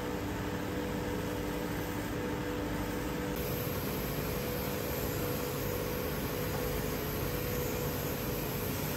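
Belt sanders running steadily, a hum over an even hiss, as Akita cedar bentwood pieces are sanded against the belt. About three seconds in, the sound switches to a second, larger belt sander.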